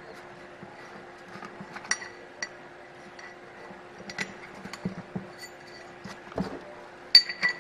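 Light, irregular clicks and clinks as a Matco 6-inch aluminium wheel half is handled and pressed into a tyre by hand, with a sharper clink near the end.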